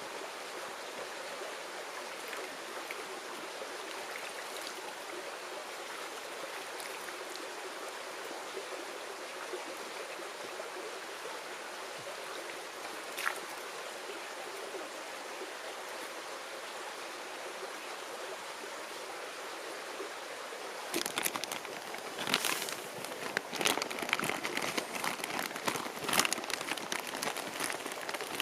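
Mountain stream babbling steadily, with a single sharp click about 13 seconds in. About 21 seconds in, a louder run of irregular rustling and knocking starts over the water and goes on to the end.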